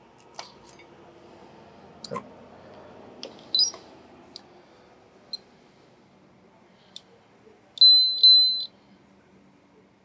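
Peak Atlas ESR70 capacitor tester giving two high, steady electronic beeps near the end, signalling a finished capacitor measurement. Before that come a few small clicks and taps from handling the test leads and the capacitor.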